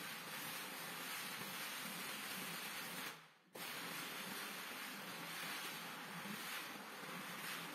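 Single-disc rotary floor machine scrubbing shampoo foam into a wet rug: a steady hissing swish that drops out briefly about three seconds in, then carries on.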